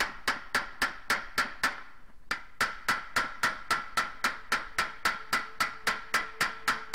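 Small panel-beating hammer tapping out dents in a thin sheet-metal motorcycle toolbox lid: a steady run of light metallic strikes, about four a second, each with a short ring. The strikes pause briefly about two seconds in.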